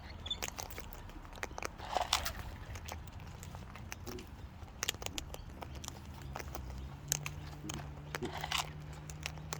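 Cockatoo cracking and chewing seed with its beak: irregular sharp crunches and clicks. A faint low steady hum comes in about six seconds in.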